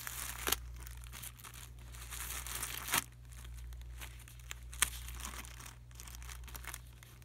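Thin plastic wrapper of an individually wrapped sanitary pad crinkling as it is unfolded and peeled open, super quiet to open, with a few sharp snaps of the wrapper and adhesive tab.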